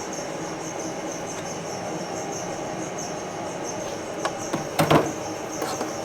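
A machine running steadily with a thin high whine, with a few sharp clanks and knocks about four to five seconds in.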